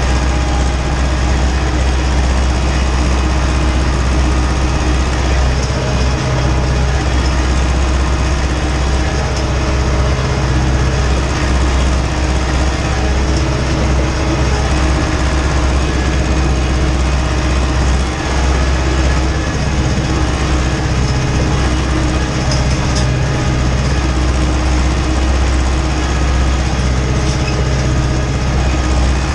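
Ursus tractor's diesel engine running steadily under load, heard from inside the cab, as it pulls a seedbed cultivator across the field.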